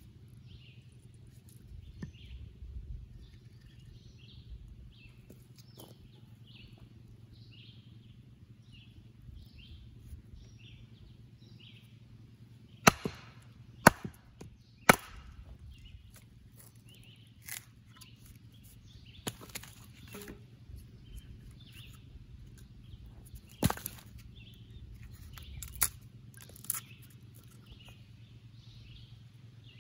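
A bird chirping in a quick repeated series, about two calls a second, then a handful of sharp knocks, three about a second apart followed by a few more spaced out, over a steady low hum.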